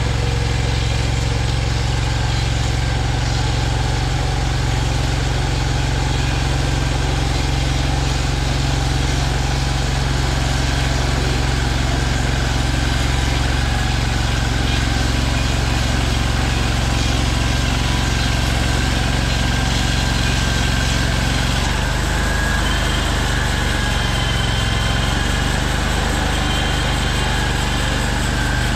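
Small engine of a Hud-Son portable bandsaw mill running steadily under load as its band blade saws lengthwise through a cherry log. The engine note drops slightly about two-thirds of the way through.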